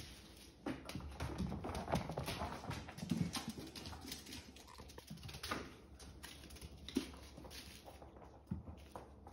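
Kittens scampering across a hardwood floor and rug: an irregular patter of small paws and claws, with a few louder knocks.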